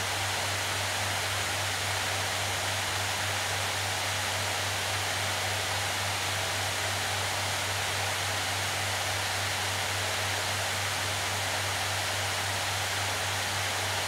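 Acer Predator Helios 16 gaming laptop's cooling fans running in auto mode under a heavy GPU stress load: a steady airy hiss with a low steady hum beneath it.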